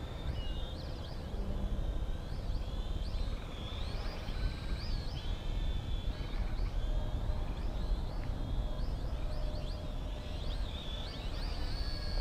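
Brushed motors and propellers of an XK X260 quadcopter whining in flight on its slowest 40% rates, the pitch swooping up and down again and again as the throttle changes.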